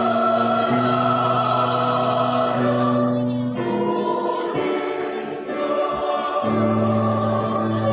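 Mixed adult choir of women's and men's voices singing in parts, with held chords; the low held notes fall away for a few seconds midway, then return.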